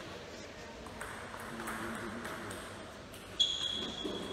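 Table tennis rally: the ball clicking off bats and table in a large hall. About three and a half seconds in comes a sharp hit followed by a clear ringing tone lasting about a second.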